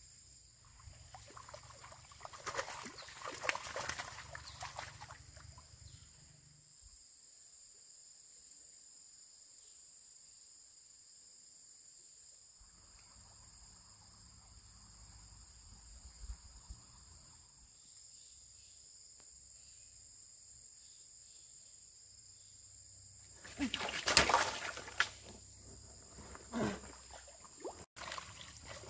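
Steady high-pitched drone of insects, with two spells of louder scuffling noise, one in the first few seconds and a louder one near the end.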